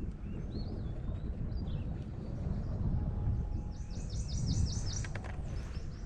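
Songbird chirping over a steady low wind rumble: a few scattered high chirps early, then a quick run of about ten repeated high notes around four to five seconds in, followed by a few faint clicks.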